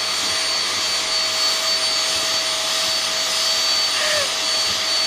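Vacuum cleaner running steadily with a constant whine, being run over a cat's fur.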